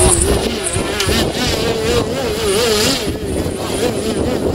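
Radio-controlled Laser aerobatic model plane's motor and propeller holding it in a nose-up hover, a steady drone whose pitch wavers up and down as the throttle is worked to balance it.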